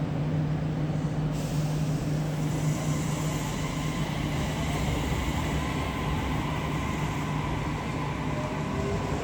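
Train running at the station: a steady rumble with a strong low hum and a faint whine that slowly shifts in pitch near the end.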